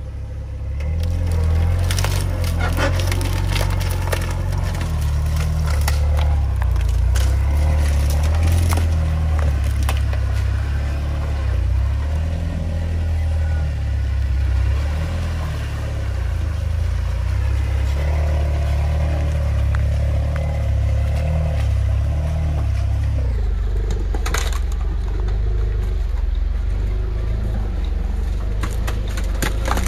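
Jeep Wrangler engine running low and steady as it drives off-road, with repeated crackling and snapping of dry reed stalks and brush under the tyres.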